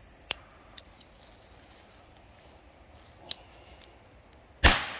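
Two small clicks, then a single sharp bang from a Black Cat Pyrocracker firecracker going off near the end, fading quickly.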